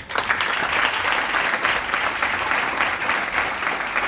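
An audience of uniformed school learners applauding: many hands clapping at once, dense and steady.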